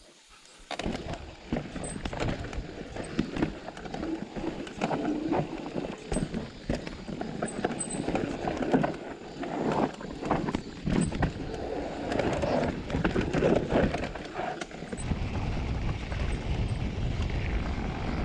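Electric mountain bike, a Specialized Turbo Levo, descending a rough trail: tyres on dirt and rock, with the frame and chain rattling in a dense, irregular clatter over bumps and steps. The clatter starts about a second in. Wind buffets the microphone near the end.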